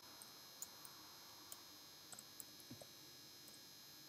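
Faint keystrokes on a computer keyboard, a scattered handful of soft clicks, over near-silent room tone with a steady faint high whine.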